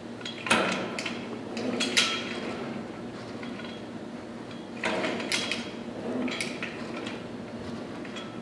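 Cable machine's weight stack, pulleys and metal bar attachment clanking and rattling as the cable is pulled and let back for a lift, in two bursts, one near the start and one about halfway through.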